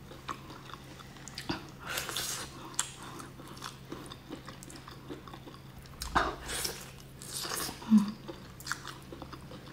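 Close-up mouth sounds of chewing soft braised baby octopus, wet smacks and bites with a few louder ones about 2, 6 and 7.5 seconds in, and a short hum of 'mm' near the end. A faint steady low hum runs underneath.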